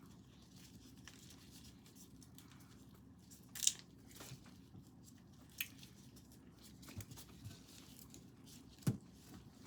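Raw shrimp being peeled by hand: faint, scattered crackles and small snaps as the shells tear away, the sharpest about three and a half seconds in.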